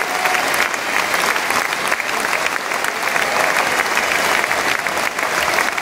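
Football stadium crowd applauding, thousands of fans clapping steadily, with one fan's claps close by.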